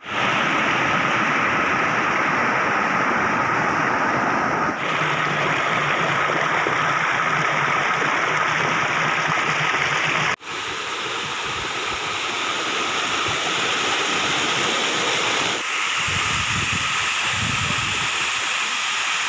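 Waterfall water rushing in a steady wash of noise, which changes abruptly about five, ten and sixteen seconds in as shots cut.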